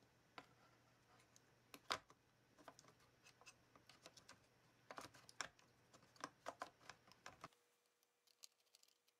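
Faint, irregular clicks and taps of a laptop being handled, in small groups. A low background hum cuts off about seven and a half seconds in.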